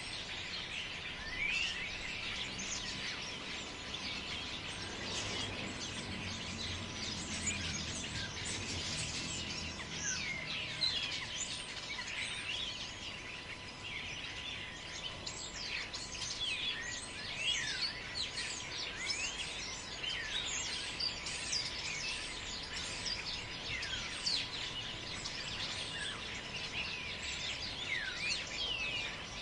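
Forest birds chirping and calling, many short overlapping rising and falling notes, over a steady background hiss. A low rumble comes in about five seconds in and fades by about ten seconds, and a faint steady high tone runs underneath.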